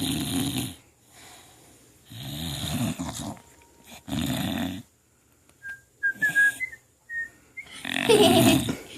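Bulldog snoring while awake and lying on her back: three snores about two seconds apart, then a few short high whistling squeaks, and a louder, longer snore near the end.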